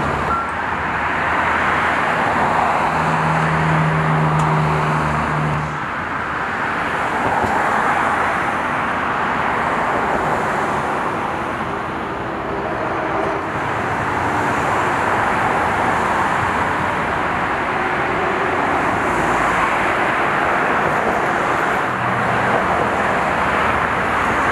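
Steady road traffic noise, with cars passing and the sound swelling and fading. About three seconds in, a deeper engine hum comes through for a few seconds.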